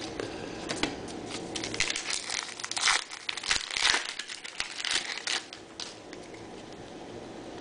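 A trading card pack wrapper being torn open and crinkled in the hands, a run of sharp crackling for a few seconds that dies away near the end.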